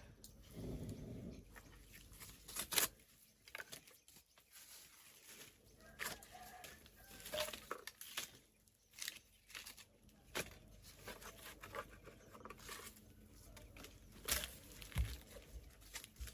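Chickens clucking now and then, among scattered sharp knocks and scrapes.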